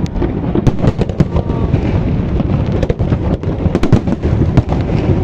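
Fireworks going off: many quick bangs and crackles that overlap one another over a steady low rumble.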